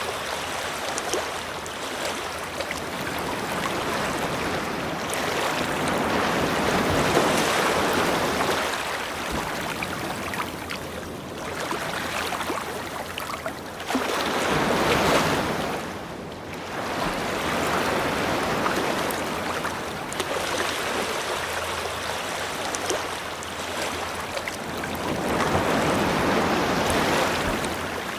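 Ocean surf washing onto a beach, a steady wash of noise that swells and eases in slow surges every several seconds.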